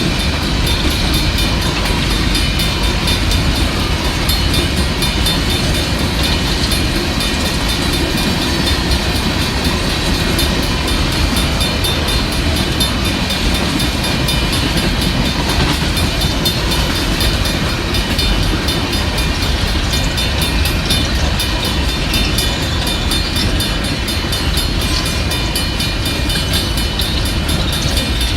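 Union Pacific coal train's cars rolling steadily past on the rails, a continuous rumble of wheels on track.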